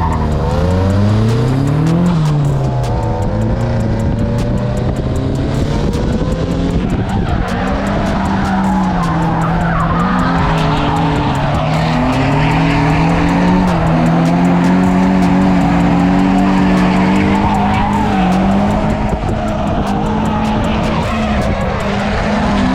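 Drift car engine revving hard, its pitch climbing and falling over and over as the throttle is worked through the run, with tires skidding and squealing.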